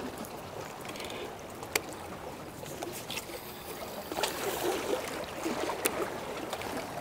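Water lapping and sloshing at the shoreline, with a couple of sharp clicks.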